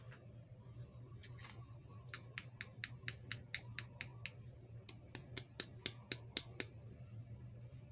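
Two runs of quick, sharp clicks, about four a second, the first about two seconds in and the second a little after the middle, from small plastic toy pieces being handled, over a steady low hum.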